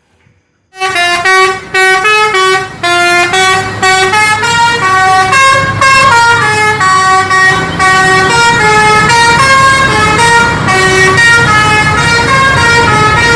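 Multi-tone bus air horn of the Indonesian "telolet" kind playing a melody, starting about a second in and running on as a string of held, stepped notes.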